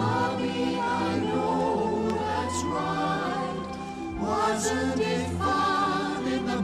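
Choir singing a slow song with long held notes.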